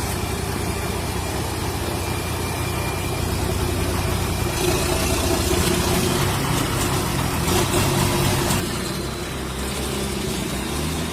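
Kirovets K-700 tractor's diesel engine running hard under load while its tires spin without traction, getting louder for a few seconds in the middle.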